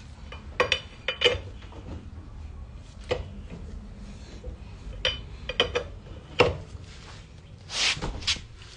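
Four-way cross lug wrench clinking and clanking on a truck wheel's lug nuts: an irregular scatter of sharp metal knocks, with a short rasping scrape near the end.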